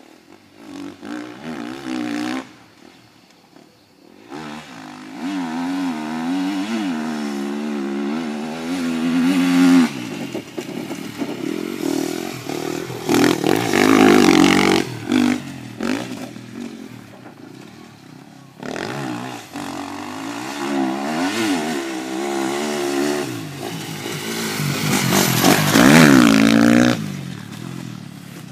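Small motocross bike's engine revving up and down as it is ridden through the turns of a dirt track, its pitch rising and falling with each throttle change. It fades between passes and is loudest as it comes close around halfway and again near the end.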